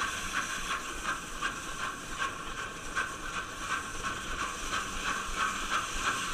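Toboggan sliding fast down a metal chute: a steady hissing rush with frequent short clicks and rattles as the sled runs along the track.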